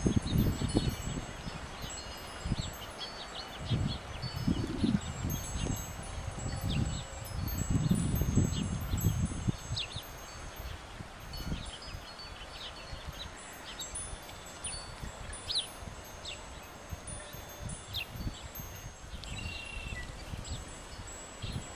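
Wind chimes ringing irregularly in a gusty wind, with wind buffeting the microphone in several gusts during the first half.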